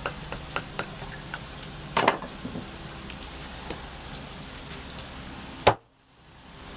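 Steady hiss with scattered crackles and pops, a louder pop about two seconds in and a sharp click near the end, after which the sound briefly drops out almost to silence.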